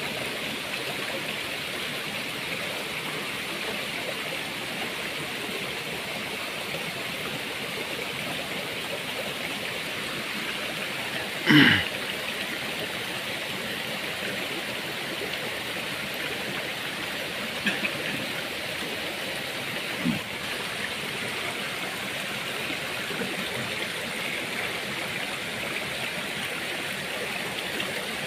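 Small rocky mountain stream running steadily, a constant rushing of water over stones. A brief louder sound cuts in about halfway, with two fainter short ones a few seconds later.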